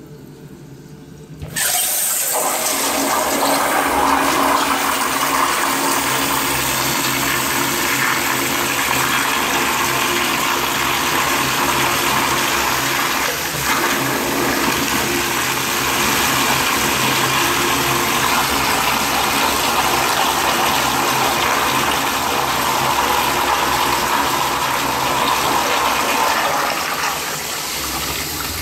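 Crane Plumbing toilet with a flush valve flushing: a loud rush of water starts suddenly about a second and a half in and swirls steadily around the bowl for over twenty seconds, easing a little near the end. The forceful, long flush is one the uploader puts down to water pressure set too high.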